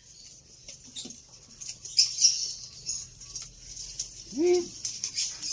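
Goats' hooves tapping and shuffling on the slatted wooden floor of their pen, in scattered light knocks, with one short rising-and-falling animal call a little past four seconds in.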